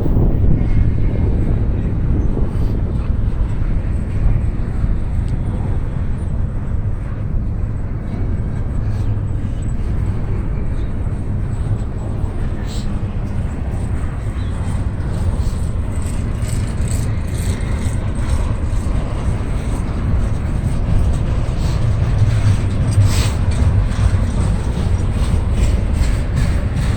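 Freight train cars rolling slowly past, a steady heavy rumble, with gusty wind buffeting the microphone.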